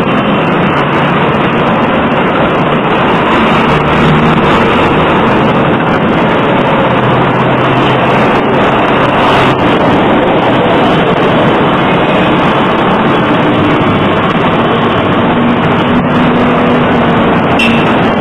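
Steady, loud traffic noise from cars and buses on a busy city avenue.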